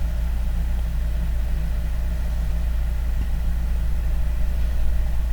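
Steady low mechanical hum, like an engine or motor running at idle, holding an even level throughout.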